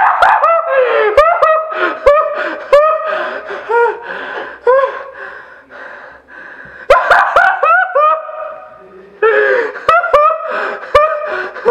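A young man laughing hard and uncontrollably, in high-pitched cackling bursts with sharp gasping breaths between them. The laughter dies down in the middle and breaks out again about seven seconds in.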